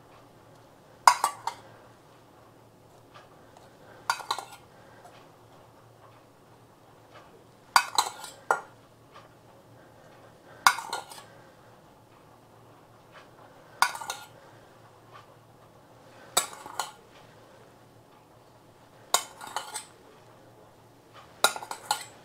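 Metal spoon clinking against a small stainless steel saucepan as it scoops out orange juice: a short cluster of clinks every two to three seconds, eight times in all.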